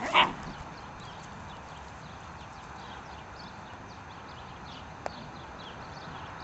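A Briard puppy gives one short, sharp bark right at the start, then steady faint outdoor background with a single sharp click about five seconds in.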